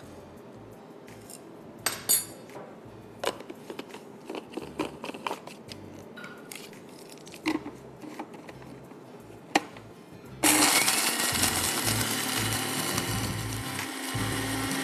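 A small electric spice grinder switches on about ten seconds in and runs steadily and loudly, grinding dry-roasted whole spices and coconut. Before it starts, a few light clicks and scrapes of a spatula in a pan.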